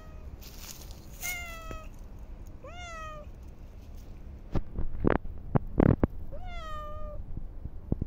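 Domestic cat meowing three times: two short calls a second or so apart, then a third after a pause of a few seconds, each rising and then sinking. Between the second and third meows comes a cluster of loud sharp knocks and rustles, the loudest sounds here.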